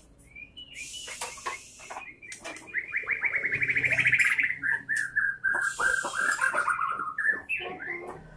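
White-rumped shama (murai batu) singing: a long run of rapid repeated notes that slowly falls in pitch, loudest about four seconds in, with a few harsh rasping notes mixed in.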